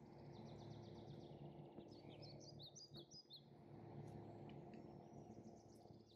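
Faint background noise with a low steady hum, and small birds chirping in the distance: a quick trill of short chirps near the start and a cluster of varied chirps around the middle.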